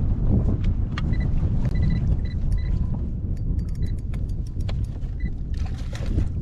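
Wind buffeting the microphone: a steady low rumble. Several short high beeps come about a second in, then a run of light clicks in the middle.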